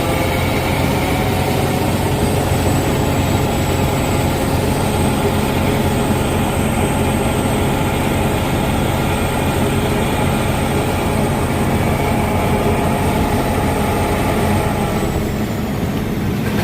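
Heavy diesel machinery running steadily, with a thin high whine over the engine that drops in pitch and fades near the end.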